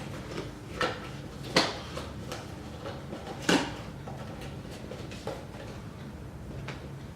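Handling of a coffee maker's carry bag and parts: a few scattered short clicks and rustles over a low steady hum.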